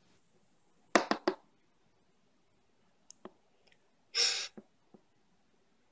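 A few light clicks and knocks of a plastic toy figure being handled and lifted off a plastic toy bed, three in quick succession about a second in and two fainter ones around three seconds. A short breathy burst just after four seconds.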